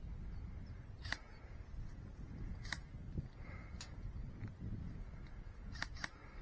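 A handful of sharp clicks, five in all with the last two close together, over a steady low rumble of handling or wind noise on the microphone.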